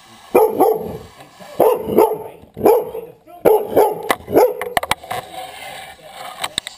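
A dog barking repeatedly, about six barks roughly a second apart, followed by a few sharp clicks near the end.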